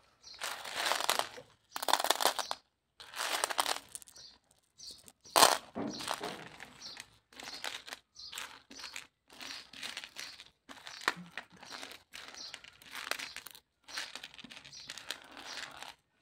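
Small sugar-coated candies being pushed and slid around a plate by hand: repeated short bursts of scraping and rattling, with one sharp click about five seconds in.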